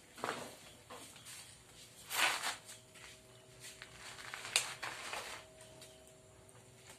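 Handling noises as a small bottle is poured into a plastic bowl of fibreglass resin: a brief scraping rustle about two seconds in and a sharp click about four and a half seconds in, with scattered lighter clicks.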